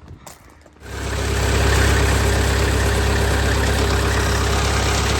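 An engine comes in about a second in and runs at a steady idle.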